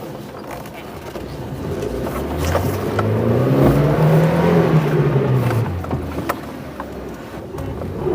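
The 2.2-litre engine of a Liebao Black King Kong 4x4 SUV revs up under load on a hill climb, rising in pitch and loudness to a peak about four seconds in, then easing off. There are a couple of sharp knocks along the way.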